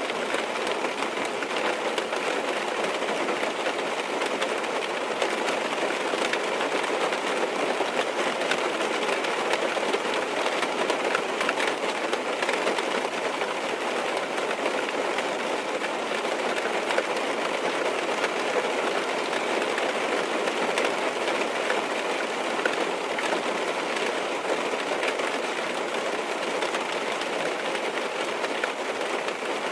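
Steady rain on a car's roof and windows, heard from inside the cabin as a constant dense patter.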